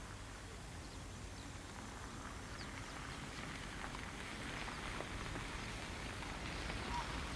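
Wind on the microphone: a steady low rumble with a hiss that builds partway through, and a few faint short chirps near the end.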